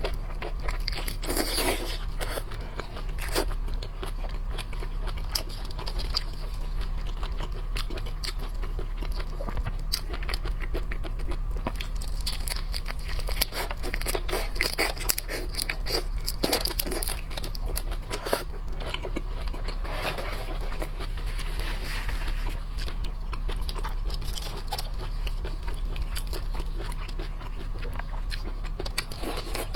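Close-miked eating of shellfish: shrimp or crab crunching and being chewed, with many small cracks and wet clicks, over a steady low hum.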